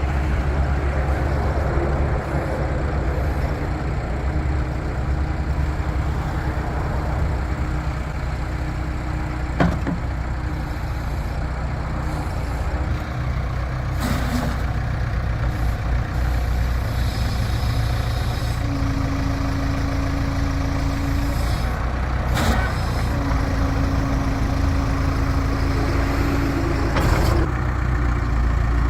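Case 580 Super K backhoe's turbocharged diesel engine running steadily, with a few sharp knocks at intervals. In the second half a steady whining tone comes in twice for a few seconds each time.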